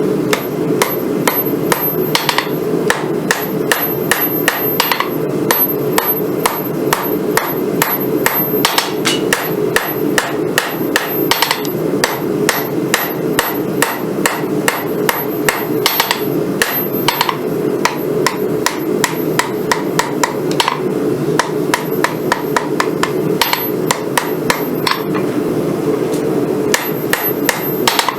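Hand-forging hammer blows on a hot Damascus knife billet, a long, even run of sharp strikes at about two a second, over a steady low hum.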